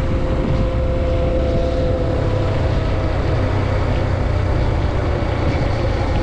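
Motorcycle engine running steadily at cruising speed on the road, with rushing wind noise over it.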